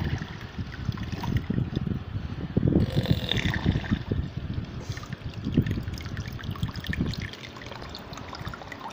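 Water splashing and trickling in a plastic tub, stirred by the jet from a small handmade submersible water pump running underwater. The churning eases off near the end.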